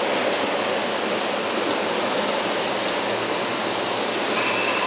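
Steady factory-hall noise on a truck assembly line: a dense, even hiss and rumble of machinery and ventilation with no single event standing out. A faint high tone comes in near the end.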